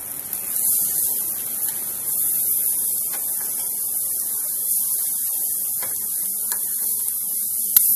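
Chicken breasts sizzling on a hot grill grate with a steady high hiss as they are turned with metal tongs, with a sharp click of the tongs near the end.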